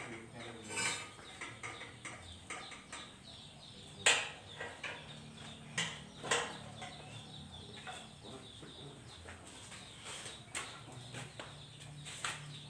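Hand tools and metal parts clinking and knocking while a wheel is fitted to a homemade mini jeep's frame: scattered sharp clinks, the loudest about four seconds in.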